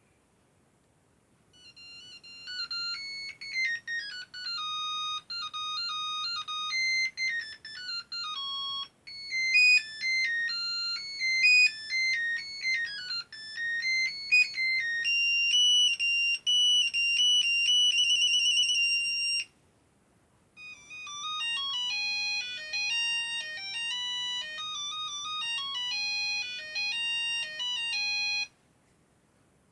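Nokia 3110 mobile phone ringtones: an electronic beeping melody, one note at a time, with a held warbling note near its end, then after a short gap about two-thirds through, a second, different melody.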